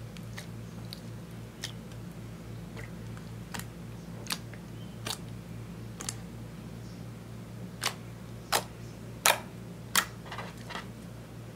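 Clear slime with eyeshadow mixed in, squeezed and poked by fingers: scattered sticky clicks and small air-bubble pops, with a few louder pops in the last few seconds, over a steady low hum.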